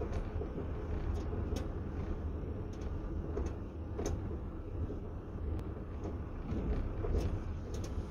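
Wind rumbling on the microphone, a steady low buffeting, with a few short sharp ticks scattered through it.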